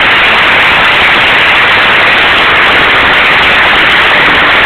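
Loud, even rushing noise with no tone, rhythm or separate claps standing out, steady throughout.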